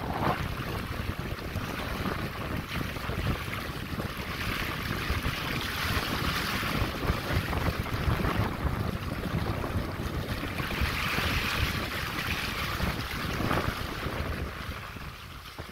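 Water rushing and hissing along the hull of a sailboat under way, swelling and easing every few seconds, with wind buffeting the microphone in a steady low rumble.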